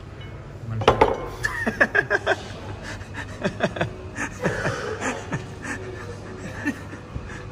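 Cutlery, plates and glasses clinking and clattering at a dining table: a run of short, sharp clinks beginning about a second in.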